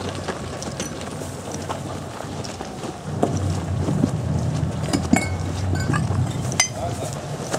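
Wind rumbling on the microphone while moving on foot, with hurried footsteps and a few sharp clicks and knocks of gear; the rumble gets louder about three seconds in.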